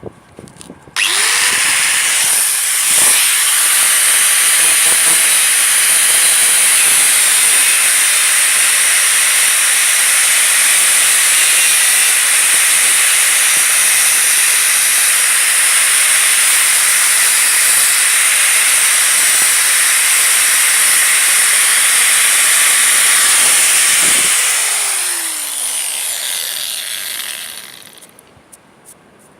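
Electric power tool spinning up about a second in and running steadily at full speed with a loud, hissing high-pitched sound, then winding down in pitch and stopping near the end.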